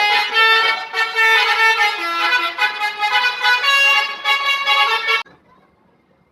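Bus telolet horn, a set of horns sounding in sequence, playing a tune of changing notes, then cutting off suddenly about five seconds in.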